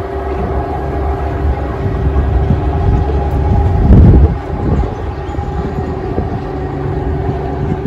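Boat motor humming steadily under wind buffeting the microphone, with a stronger gust about four seconds in.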